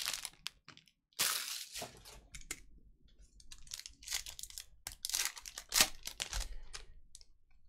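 Foil trading-card pack of Panini Contenders football cards being torn open and crinkled by hand, in several sharp crackling rips, the loudest about six seconds in.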